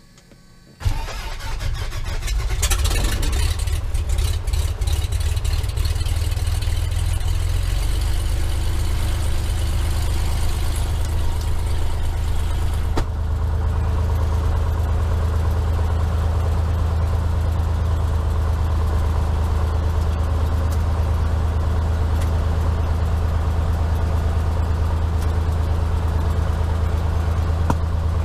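Cessna 182S's six-cylinder Lycoming IO-540 piston engine starting up about a second in, running unevenly for several seconds, then settling into a steady idle. Heard from inside the cockpit.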